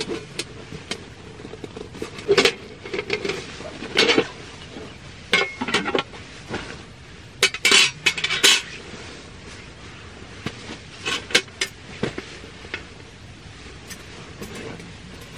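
Metal parts of a compact folding camp table clinking and clacking as its wire legs and panels are folded flat, in a scatter of irregular knocks that is busiest in the middle and thins out toward the end.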